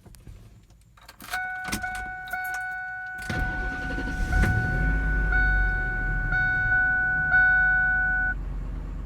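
Vehicle door and key clicks, with a steady electronic warning chime sounding. About three seconds in, an engine cranks and starts, then runs with a low rumble.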